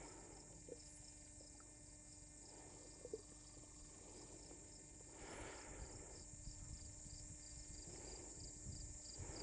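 Near silence with a faint, steady insect trill and a few soft clicks and rustles.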